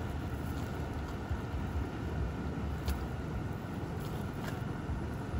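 Steady low rumble of wind on the microphone, with a few faint clinks as the cast net's chain sinker line is handled on a woven tarp.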